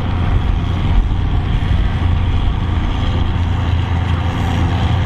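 Valmet 903 tractor's diesel engine running hard under full load as it pulls a weight-transfer sledge, a loud, steady, deep engine sound.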